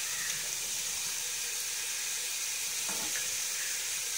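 Masala of tomatoes and peppers sizzling steadily in a steaming pot over a gas flame, an even hiss.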